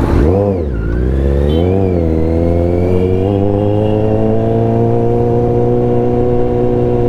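Kawasaki Z900's inline-four engine revving up and down sharply twice in the first two seconds, then running steadily with its pitch creeping slowly upward as the bike rides on.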